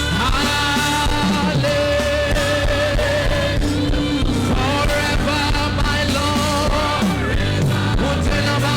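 Live church worship band playing a slow praise song, with sustained keyboard chords, bass and drums under a singer's held, gliding notes.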